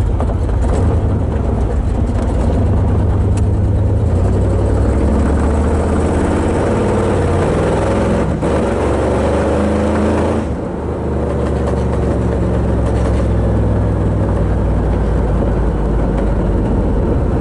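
Small-block Chevy V8 of a Camaro heard from inside the cabin while driving, a steady low engine drone that dips briefly about ten seconds in, then picks up again. The engine still runs badly even with a new carburetor.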